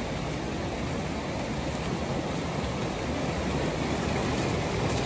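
Shallow stream running over a rock slab in a steady wash of water, with feet splashing as runners wade through it.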